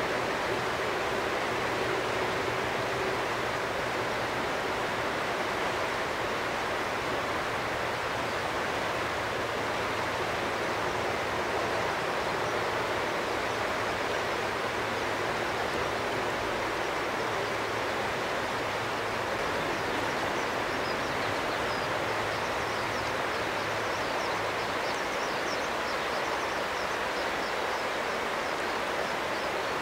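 Boeing 767-300 jet engines running at idle thrust as the airliner taxis: a steady rushing noise with a low hum beneath it.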